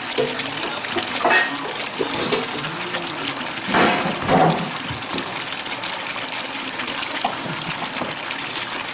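Blue crabs in sauce sizzling in a hot pan: a steady frying hiss, with louder bursts about a second and a half and about four seconds in.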